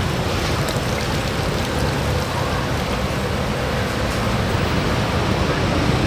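Marinated chicken sizzling over a charcoal grill: a steady hiss with faint scattered crackles.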